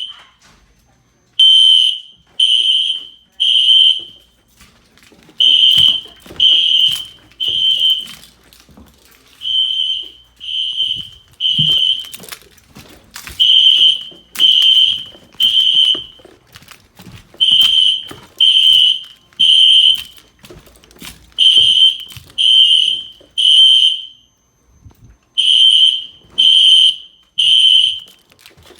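System Sensor SpectrAlert Classic fire alarm horns sounding a loud, high tone in groups of three short blasts, each group followed by a pause and repeating about every four seconds: the temporal-3 pattern that signals building evacuation.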